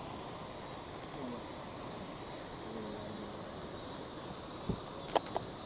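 Steady outdoor background hiss, with a dull knock and then two sharp clicks near the end, typical of gear being handled in a boat.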